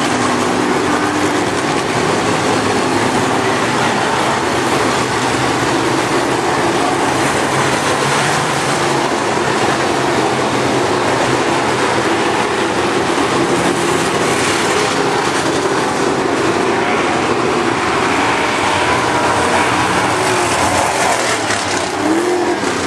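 A field of dirt late model race cars running hard around a dirt oval: a loud, steady, dense V8 engine noise that does not let up. Near the end a car passes close and its pitch bends.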